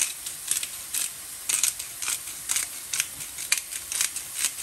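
Spatula stirring and scraping minced chicken around a frying pan, with short scraping strokes about two or three times a second.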